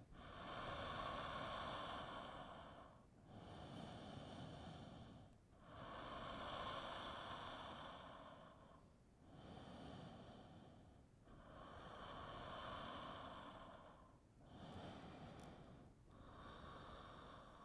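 Slow, faint, audible breathing: long hissing inhales and exhales of two to three seconds each, about seven in a row, with a short pause between them.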